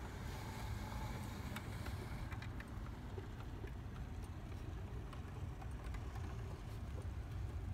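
Brass HO-scale Union Pacific 4-8-4 FEF-3 model locomotive running along the track: a steady low rumble of its motor, gears and wheels, with scattered light clicks of wheels crossing rail joints.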